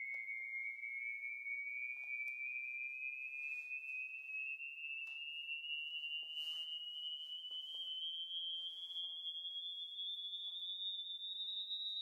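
A pure sine test tone played through a smart speaker, gliding slowly and steadily upward in pitch: a frequency sweep used to test the speaker's frequency response.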